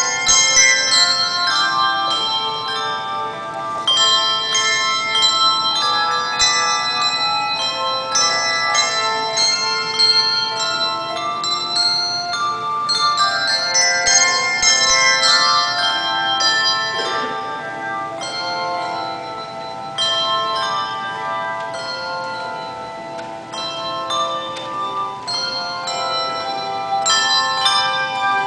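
Handbell choir ringing a piece of music: many tuned handbells struck in overlapping chords and runs, each note ringing on under the next, with a somewhat softer stretch about two-thirds of the way through.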